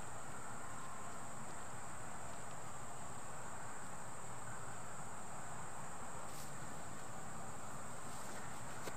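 Steady high-pitched insect chorus, with a few faint ticks.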